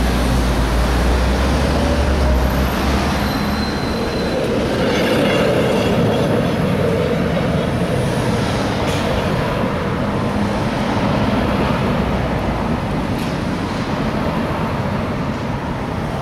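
PCC streetcar running past on its rails, with a heavy low rumble at first, then a brief high wheel squeal about five seconds in, over steady city traffic.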